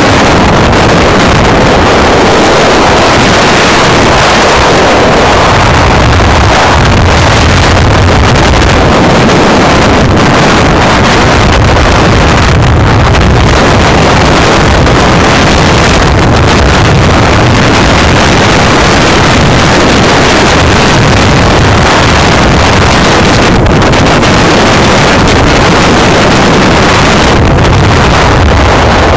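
Motorcycle on the move: loud, steady wind noise on the microphone, with the engine and road noise running underneath.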